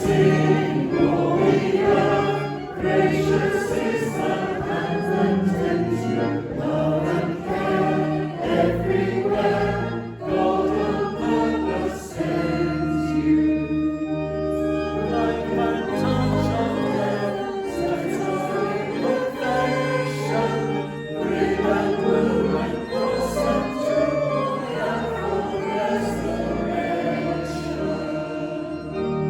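Choir singing a hymn, with steady low held notes underneath.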